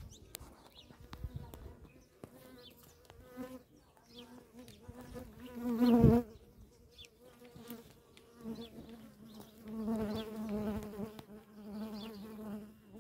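Flies buzzing close by, a hum that swells and fades, loudest in the middle and again in the last few seconds, with one sharp thump about six seconds in.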